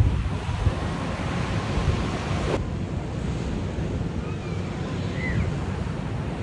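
Wind gusting on the microphone over a steady rush of surf breaking on the beach below.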